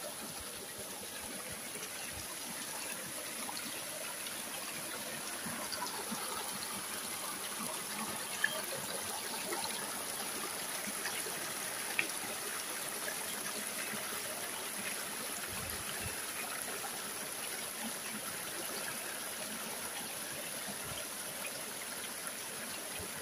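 Shallow mountain stream trickling steadily over rocks and small cascades, with two brief faint ticks partway through.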